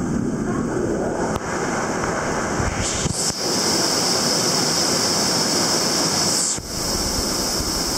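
Waterfall pouring into a plunge pool, a steady loud rush of water. Its hiss brightens about three seconds in and briefly dips near the end.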